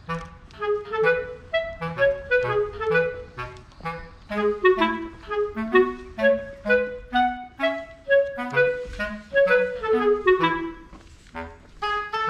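Background music: a clarinet plays a quick melody of short notes over a low bass line.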